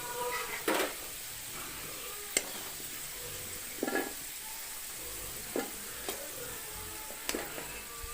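Potato pieces frying in hot mustard oil in a kadai, the oil sizzling steadily, while a spatula scrapes and knocks against the pan about seven times as the fried potatoes are lifted out.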